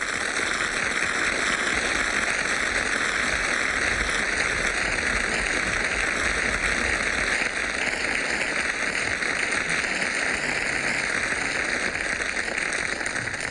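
Studio audience applauding steadily after a song, a dense even clapping that neither builds nor breaks off.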